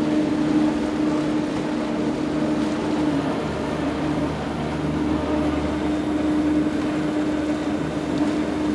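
Water churning steadily as it is blasted out of the rear jet pump of a Taiga Orca electric jet ski strapped down in a test tank, with a steady low hum under it.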